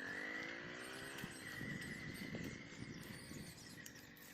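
Faint outdoor ambience: a drawn-out animal call lasting about a second at the start, over a thin, steady high-pitched tone.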